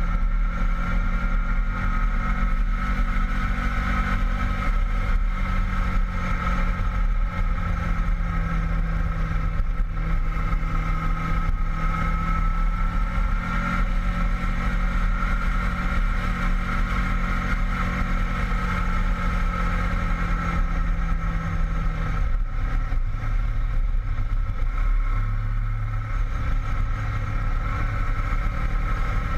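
Honda VFR800 VTEC's V4 engine running steadily under way on the open road, with a constant low rush of wind noise. About three quarters of the way through the engine note drops to a lower pitch.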